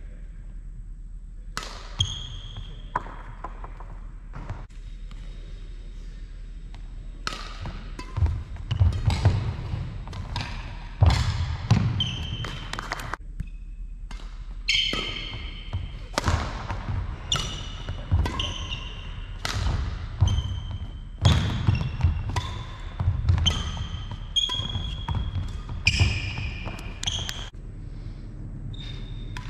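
Badminton rally: sharp racket strikes on the shuttlecock and quick footfalls on the wooden court floor, with short high shoe squeaks. The first several seconds are quieter, then the hits and steps come about once a second.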